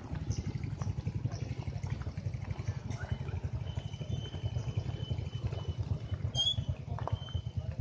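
Motorcycle engine running at low speed, a steady low rumble with a fast even pulse, as the bike creeps along at walking pace. A thin high steady tone is heard faintly for a few seconds midway.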